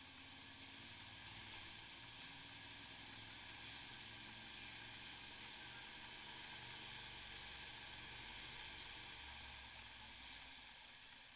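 Faint, muffled motorcycle riding noise: a low engine rumble that rises and falls under a steady hiss.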